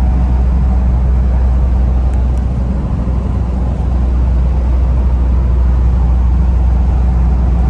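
Steady low drone inside the cabin of a 1996 Mitsubishi Challenger cruising at highway speed: its 4M40 2.8-litre turbo diesel running under load, mixed with tyre and road noise.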